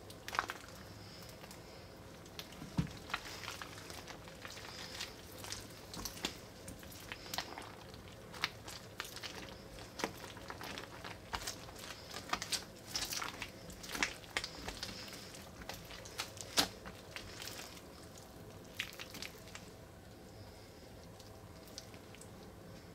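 Clear water-based slime full of Orbeez water beads being squeezed and stretched by hand: irregular wet, sticky clicks and pops. They thin out in the last few seconds.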